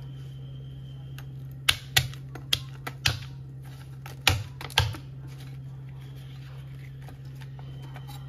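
Kitchen knife chopping through lemongrass stalks onto a round wooden cutting board: about seven sharp knocks of the blade striking the wood, in the first half, over a steady low hum.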